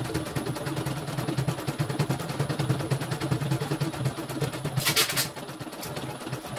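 CNY computerized embroidery machine stitching a design, sped up: rapid, even needle clicking over a steady motor hum, with a brief hiss about five seconds in.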